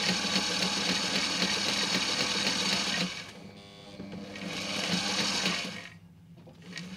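Reliable Barracuda walking-foot sewing machine stitching a slow straight seam through canvas under light foot-pedal pressure. It runs steadily, drops off about three seconds in, runs again more quietly, then stops about six seconds in.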